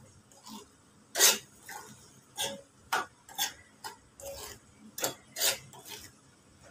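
A spatula scraping and knocking against a metal kadai as oil-coated pickle fruit and spices are stirred. It comes as short, irregular strokes, about one or two a second, with the loudest about a second in.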